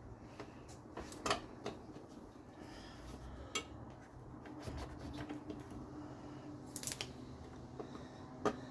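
Scattered sharp clicks and knocks of hard plastic as a car's coolant reservoir is worked by hand to release it from its mounting tab, over a faint steady hum.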